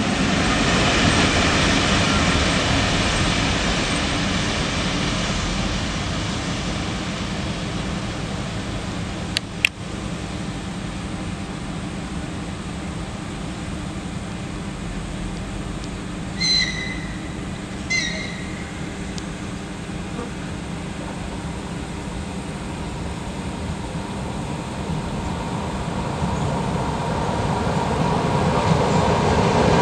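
ED2T electric multiple unit approaching through a station: a steady rumble that eases off and then builds toward the end. Two short high-pitched whistle toots sound about a second and a half apart midway through.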